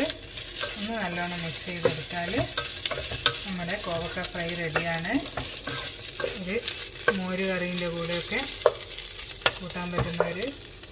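Wooden spatula stirring and scraping ivy gourd pieces around a nonstick pan, with the sizzle of frying and occasional sharp knocks of the spatula against the pan. A low droning tone comes and goes several times.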